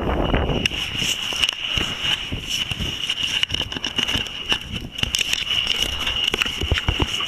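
Wind buffeting the microphone outdoors, with scattered crackling clicks and a steady high whine underneath.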